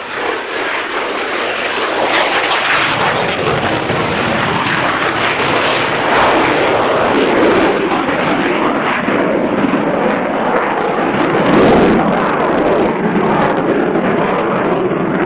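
Aircraft engine noise from a display flypast: a loud, continuous rushing sound that swells twice, about six and twelve seconds in.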